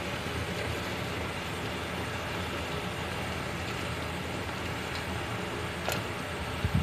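Steady rumbling hiss of a large pot of water at a full boil on the stove, with a short click about six seconds in.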